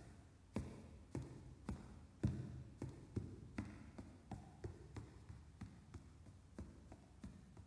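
Footsteps on a hard floor walking away at an even pace, about two steps a second, each ringing briefly in a large empty auditorium and growing fainter as they recede.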